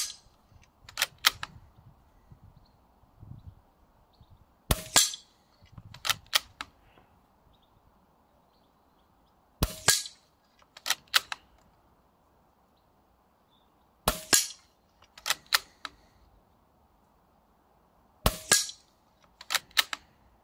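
Five moderated shots from a Weihrauch HW110 .22 PCP air rifle, one every four to five seconds, each followed about a second later by two quick clicks as the side lever is worked back and forth to chamber the next pellet.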